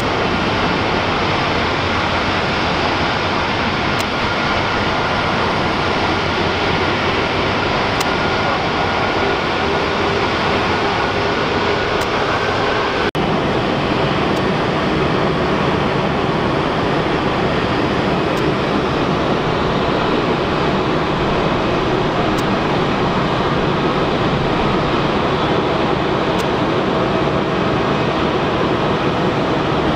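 Steady rumble of jet aircraft engines across the airfield, with one brief dropout about a third of the way through.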